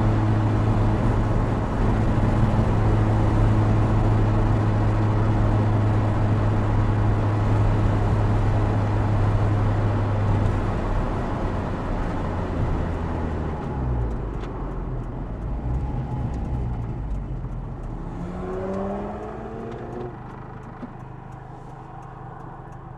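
Opel Speedster Turbo's turbocharged four-cylinder engine running at a steady pitch under heavy wind and tyre noise in the open cockpit. It then backs off: the engine note, wind and road noise die away as the car slows. A brief rising rev comes near the end, and the sound cuts off abruptly.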